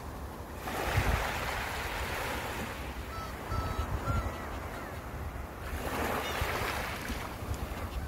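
Sea waves breaking on the shore in two swells of surf, about a second in and again about six seconds in, with wind buffeting the microphone. A few short seagull calls sound between the waves.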